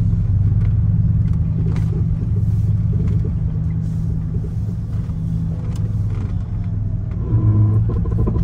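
2002 Chevrolet Silverado 4x4 with a 5.3 V8 driving, heard from inside the cab as a steady low rumble of engine and road, briefly louder a little before the end.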